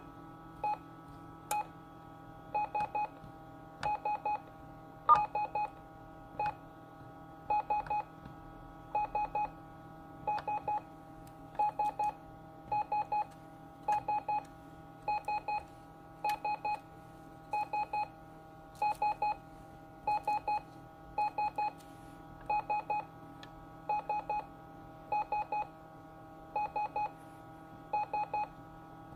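Short electronic beeps in groups of two or three, repeating about every second and a quarter over a steady electronic drone, with an occasional sharp click.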